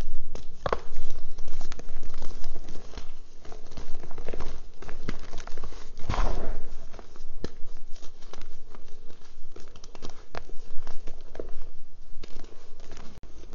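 Hands crushing and crumbling dry reformed gym chalk in a plastic tub: a run of crunches and crackles with powdery sifting, and a broader crunch about six seconds in.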